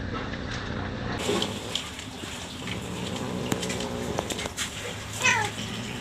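Domestic cats mating: one cat lets out a short yowl that falls in pitch about five seconds in, over soft rustling and scuffling.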